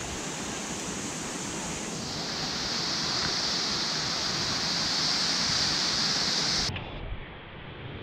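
Steady rushing hiss of a waterfall and stream. About two seconds in it grows louder and brighter, then cuts off abruptly near the end.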